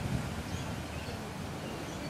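Outdoor background noise: a steady low rumble of wind on the microphone, with a few faint, short high chirps.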